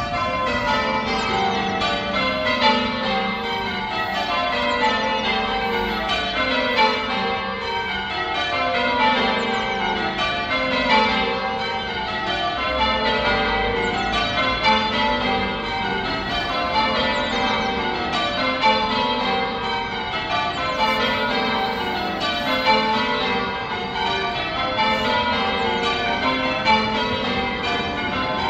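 A ring of church tower bells rung in sequence, each row of strikes stepping down in pitch from the highest bell to the lowest, a new row about every two seconds.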